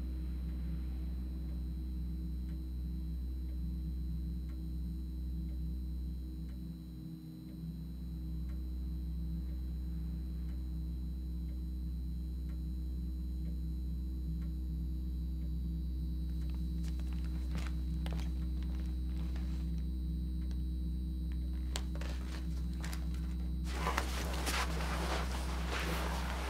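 A steady low drone with faint scattered ticks. About three seconds before the end, a burst of rustling and clicking noise.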